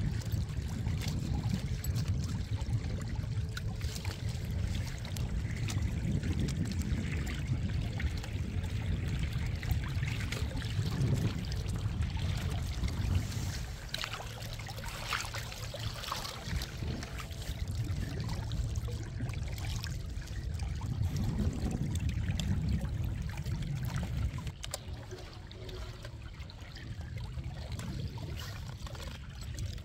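Water trickling and splashing along the hull of a small sailboat moving through the water in a light wind, over a steady low rumble.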